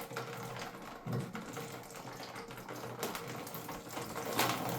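Water running out of the toilet tank through the loosened fill-valve opening and splashing into a bucket below, getting louder about three seconds in.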